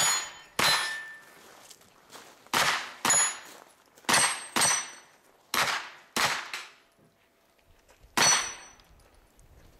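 Pistol caliber carbine shots, about nine, mostly fired in pairs about half a second apart, with steel targets ringing after the hits.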